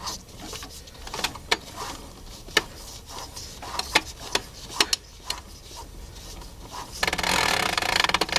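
Record changer of a 1976 Magnavox console stereo being handled: a string of sharp clicks, then a loud scratchy rasping from about seven seconds in.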